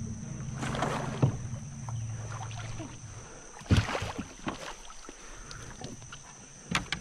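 Kayak being paddled: the paddle dips and splashes, with several sharp knocks of the blade or shaft against the plastic hull, about a second in, near the middle and near the end. A low steady hum runs under the first three seconds and then stops.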